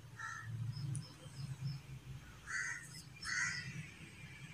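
Crows cawing: a harsh caw at the start, then two more in the middle. A small bird chirps a quick run of high notes about a second in.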